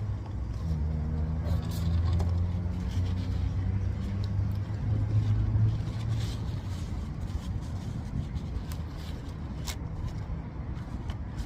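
A vehicle engine running with a low steady hum, stronger for the first half and then easing off, with a few faint clicks.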